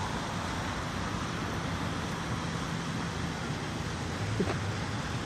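Steady outdoor background noise with a faint low hum running through it, and a single light click about four seconds in.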